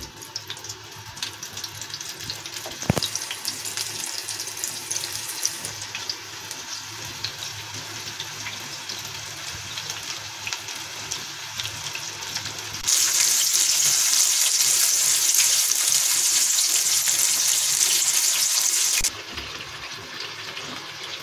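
Arrowroot-coated mushroom pieces deep-frying in hot oil: a steady sizzle full of fine crackles that builds over the first few seconds. It turns much louder for about six seconds in the middle, then drops back.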